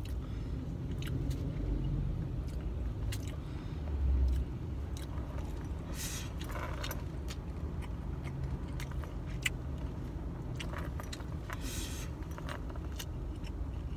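A fork clicking and scraping against a foam takeout box, with chewing, over a low steady rumble.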